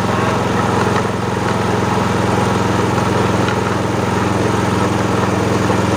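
Powered grinding mill running steadily with a constant drone while peanut-chili sambal pecel paste is pushed through its hopper and ground.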